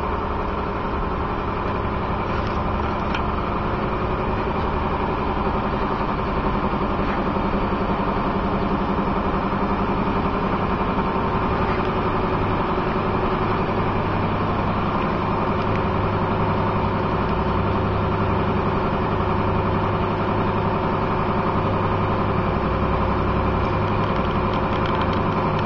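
An engine or motor running steadily at an even speed, with a constant hum and no change in pitch.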